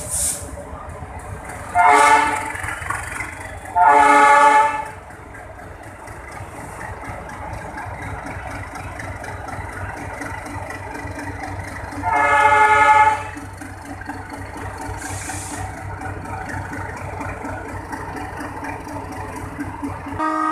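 Diesel locomotive's horn sounding three blasts of about a second each, the first two two seconds apart and the third about eight seconds later, with a brief toot at the end. Between the blasts the locomotive's diesel engine runs with a steady rumble.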